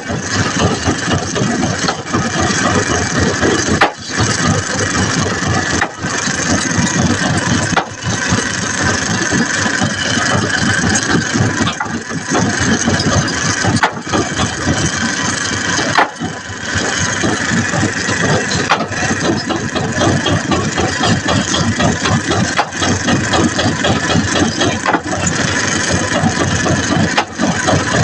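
An engine running steadily, with rattling.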